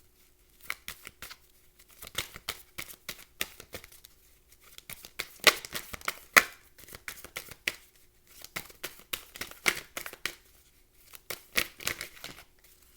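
Tarot cards being shuffled and handled: a run of irregular, sharp card clicks and flicks, loudest about halfway through.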